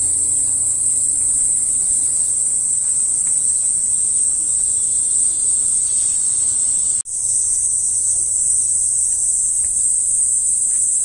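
Cicadas singing in a steady, high-pitched drone, cut off for a moment about seven seconds in.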